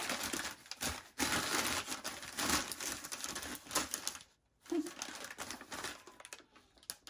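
Crumpled newspaper packing crinkling and rustling as it is pulled out of a cardboard box by hand. Louder for the first four seconds, then softer after a brief pause.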